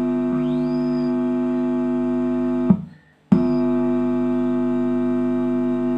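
Loud, steady mains hum buzzing from a home-theater speaker as a screwdriver tip touches the input of a TDA2030 amplifier IC. It cuts off suddenly a little before halfway, when the tip is lifted, and starts again about half a second later on the next contact. The clean, even hum is the injection test's sign that this amplifier channel works.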